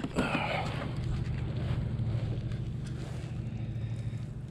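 Steady low electric hum of a Motorguide Xi3 bow-mounted trolling motor holding the kayak in place, with water splashing in the first second as a bass is scooped into a landing net.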